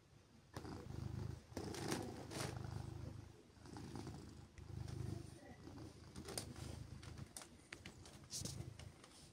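Silver tabby domestic cat purring, the low purr swelling and fading in waves about every two seconds as she breathes. Brief rustling sounds are mixed in while she is petted.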